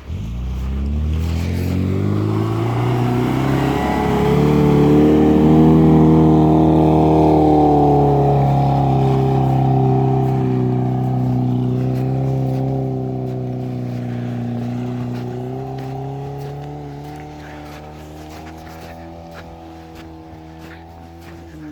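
Suzuki Vitara engine climbing in revs over the first few seconds, then held at high revs under load, easing off gradually in the second half.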